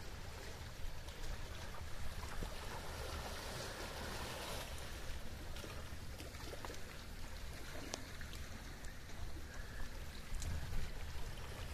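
Calm sea water lapping and trickling among shoreline rocks over a steady low rumble, with a few faint clicks.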